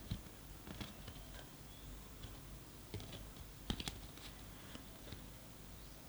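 Faint, scattered clicks and taps of tarot cards being handled and laid down on a table, with a brief cluster of sharper taps a little after halfway.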